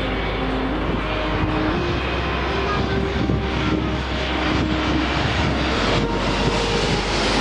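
Jet airliner engine noise, a steady rushing sound that holds at an even level.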